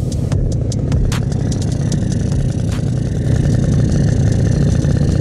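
Honda Elite E scooter's small engine running steadily at idle, with a rapid light ticking over it.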